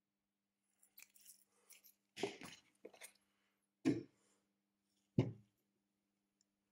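A phone and small tools being handled on a repair bench: light clicks and rustling, then three sharper knocks about a second and a half apart, over a faint steady hum.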